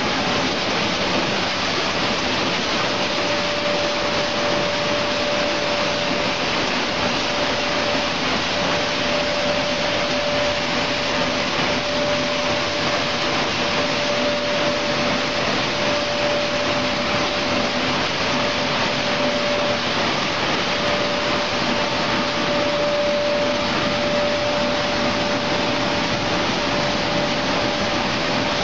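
Raisin processing line machinery running: a steady rushing mechanical noise, as of blowers and vibrating feeders, with one steady tone running through it.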